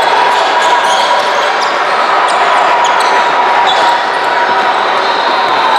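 Basketball game in a gym: a ball bouncing on the court and short, sharp squeaks and knocks over a steady background of crowd noise in the hall.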